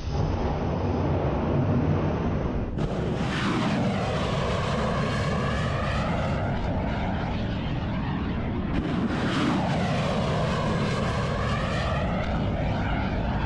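Rocket motors of ship-launched missiles roaring as the missiles lift off a warship's vertical launching system and climb away. The roar sweeps in pitch twice as launches pass overhead.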